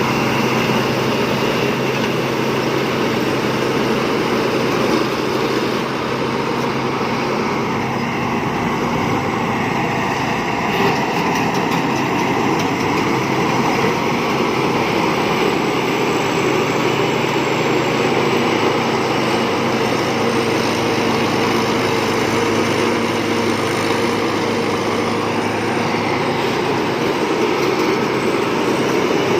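Thai Seng Yont rice combine harvester running steadily, its engine and threshing machinery going at a constant pace.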